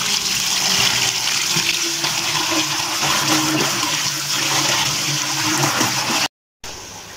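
Tap water running hard over cut eggplant pieces in a plastic colander in a steel sink, with hands rubbing the pieces as they are washed. The splashing breaks off suddenly about six seconds in.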